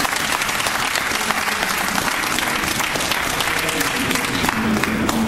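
A crowd of football supporters applauding: many hands clapping at once, dense and steady.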